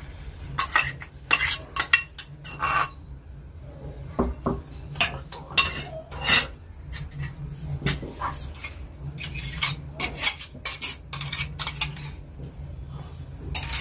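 A metal spoon clinking, knocking and scraping against a metal pot in irregular strokes as ground tomato-chilli-garlic chutney paste is spooned into hot oil and stirred. A low steady hum runs underneath.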